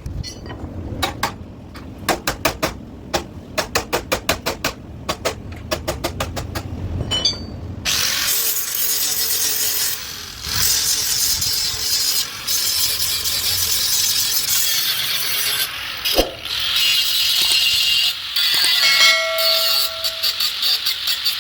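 Metalwork on a car chassis: a quick run of sharp metallic knocks, then about eight seconds in a steady harsh crackling noise from a welder or grinder that runs on with short breaks.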